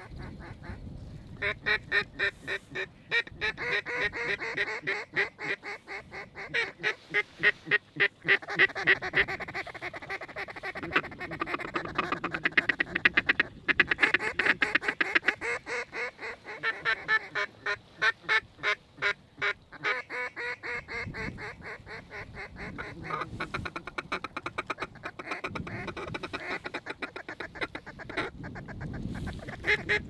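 Waterfowl calling: ducks quacking and geese honking, in fast runs of repeated calls that rise and fall throughout.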